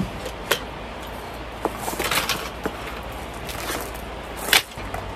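Handling noises: scattered light clicks and knocks, with a spell of rustling about two seconds in and a sharper click near the end, over a steady low hum.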